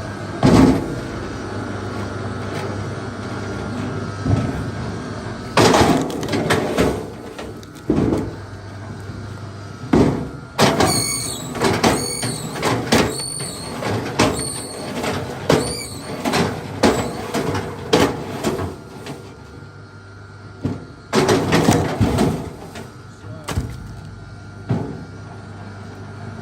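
A series of sharp knocks and thuds from wood being struck and handled, including a run of knocks about one a second through the middle, with short high squeaks after some of them. A steady low hum runs underneath.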